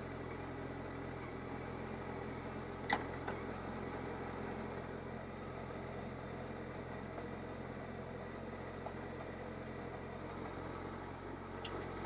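Kawasaki GTR1400 inline-four engine idling steadily, with a single sharp click about three seconds in.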